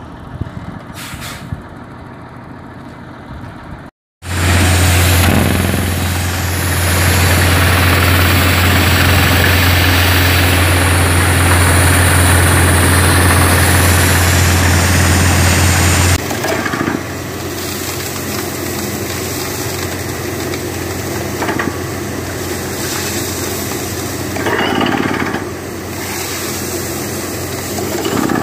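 Water-well drilling rig running at full work: engine and drilling noise, very loud and steady from about four seconds in as rock dust is blown out of the borehole. Around sixteen seconds it drops suddenly to a lower steady rumble.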